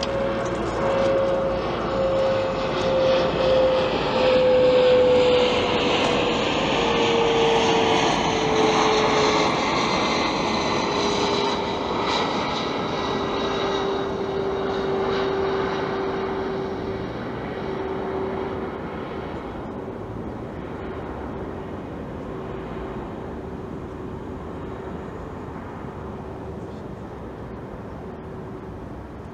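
A passing vehicle: a broad rushing noise with a whine that falls slowly in pitch over the first ten seconds, loudest about five seconds in, then fading steadily.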